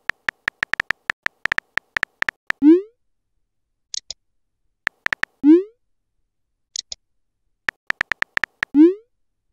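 Texting-app sound effects: runs of quick keyboard tap clicks as a message is typed, each run ending in a rising 'bloop' as the message is sent, three times over. A short high double chirp comes twice, between the runs.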